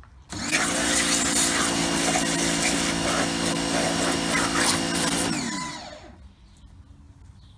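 Titan pressure washer's motor and pump starting abruptly when the trigger is pulled, running steadily with the hiss of the water jet spraying a plastic sun lounger. About five seconds in it winds down with a falling pitch as the trigger is released.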